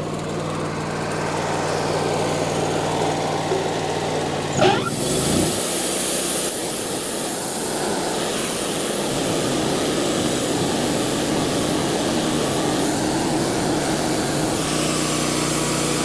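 Wood-Mizer LT40 band sawmill engine idling, then revving up with a rising pitch about five seconds in as the band engages. After that comes a steady high hiss of the band cutting through a ponderosa pine log, fed slowly to cut flat through big, hard knots.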